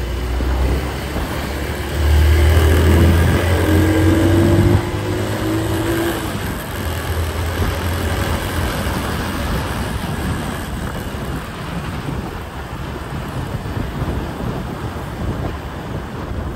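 Engine and road noise while riding along a busy town street, with a low rumble of wind on the microphone. The rumble is loudest from about two to five seconds in, where an engine note rises.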